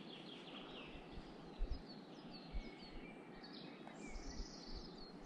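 Bird singing: a string of short, high, falling notes repeated about three times a second, over a steady outdoor hiss with a few low thumps.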